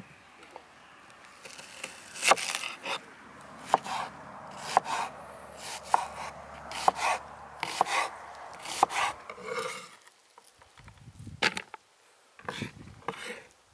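Kitchen knife slicing an onion on a wooden cutting board: a sharp knock of the blade on the board about once a second, then a few softer sounds near the end.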